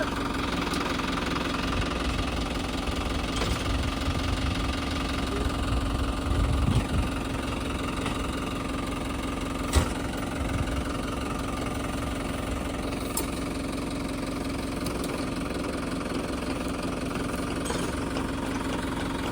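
Tractor engine running steadily while driving a baler fitted with a hydraulic side bale thrower, with a few low thuds about six to seven seconds in and one sharp knock at about ten seconds.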